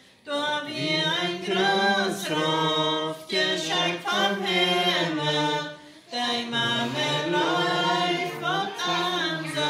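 Unaccompanied choir singing a Plautdietsch (Mennonite Low German) hymn in long held notes, with a brief break between lines about six seconds in.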